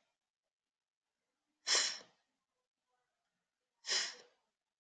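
A woman saying the unvoiced phonics sound 'th' twice: two short breathy hisses about two seconds apart.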